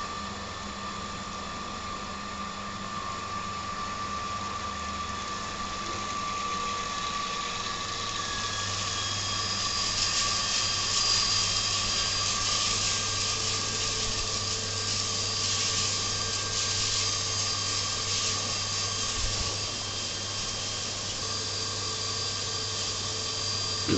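Dairy-shed fogger system running: a steady machine hum under the hiss of water mist spraying from Netafim 4-way fogger nozzles. The hiss grows louder about eight to ten seconds in.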